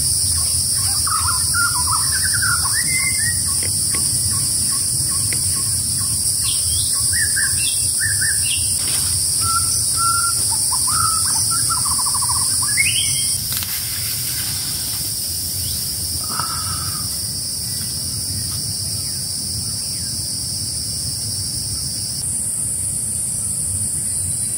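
Tropical forest ambience: insects keep up a steady high-pitched drone, while birds give short chirps and whistled calls through roughly the first half. One layer of the insect drone drops out near the end.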